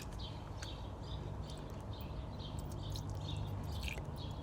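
Repeated short high chirping, about three chirps a second, from a small animal outdoors, over a steady low hum, with a few light clicks.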